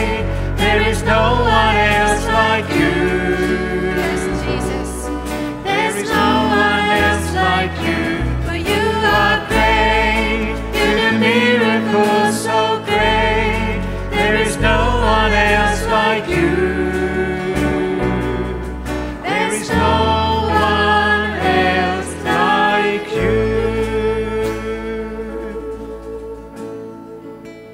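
Live worship band playing and singing a praise song: women's voices over acoustic guitars, keyboard and cajon. Near the end the singing stops and the music fades down on a held chord.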